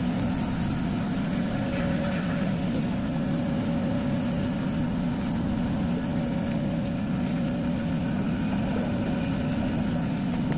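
Steady low engine drone of a moving vehicle, heard from on board, with a faint steady hum above it.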